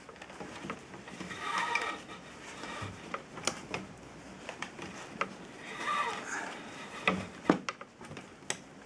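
Braided mason's line being wrapped and drawn tight by hand around a wooden dogsled joint: two spells of squeaky rubbing as the line is pulled, about two seconds in and again around six seconds, with scattered light clicks and taps.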